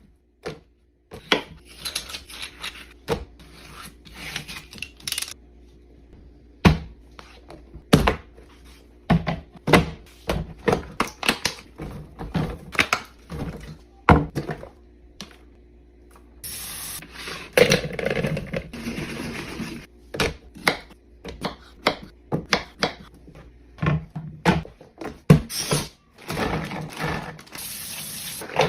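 Restocking handling sounds: many sharp knocks and clicks as items and containers are picked up and set down, with stretches of rustling packaging about two-thirds of the way through and near the end.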